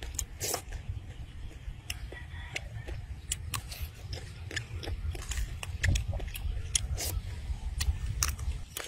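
Close-up eating sounds: wet lip smacks and chewing of shrimp in sauce, with many short sharp clicks scattered throughout over a low rumble.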